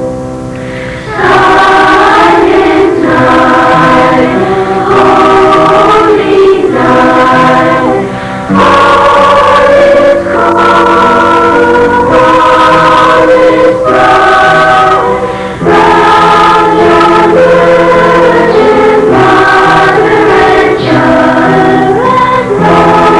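A large school choir singing a Christmas selection, the voices coming in fully about a second in and carrying on in long phrases with brief breaks between them.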